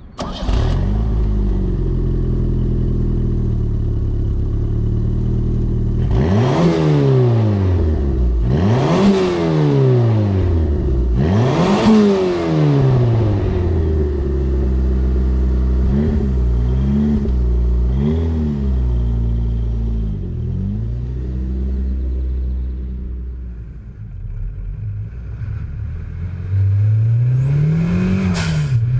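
Modified Pontiac Fiero engine idling and being free-revved: three big blips of the throttle that climb and fall back to idle, two shorter ones, then a rev near the end with a high whine rising alongside it.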